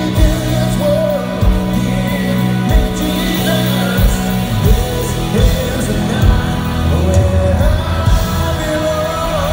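Pop-rock band playing live through an arena PA: a lead singer sings the chorus over drums, bass guitar and electric guitar, with the bass line changing notes about halfway through.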